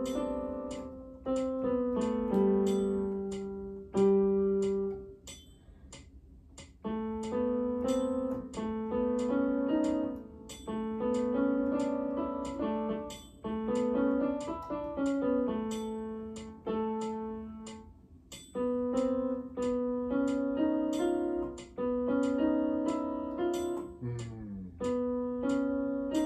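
Keyboard played with a piano sound: slow, halting chords and short note phrases, each struck group left to ring and fade before the next, with brief pauses between phrases.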